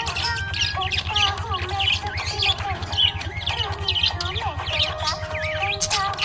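Budgerigars chirping and warbling in a dense, continuous chatter of quick rising and falling notes, the contented chatter of happy budgies, over a steady low hum.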